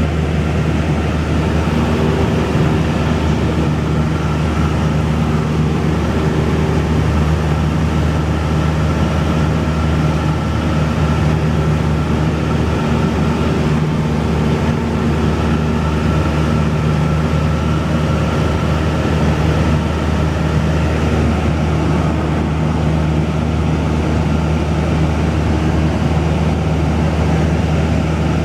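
Cessna 172's piston engine and propeller running steadily in cruise flight: an even, unbroken drone with a deep hum.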